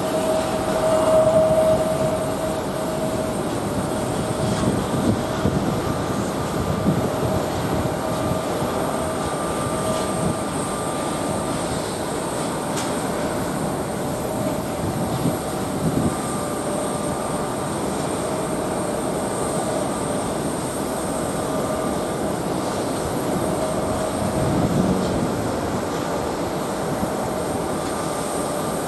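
Airbus A350's Rolls-Royce Trent XWB turbofans through approach, touchdown and landing rollout: a steady jet noise with a whining tone held at one pitch.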